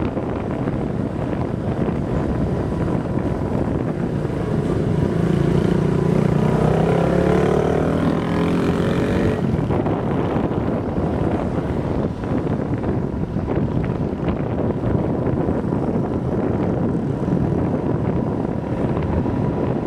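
Wind buffeting the microphone on a moving motorbike, a steady rush throughout. From about four seconds in, a motorbike engine note rises in pitch and then drops away just before ten seconds.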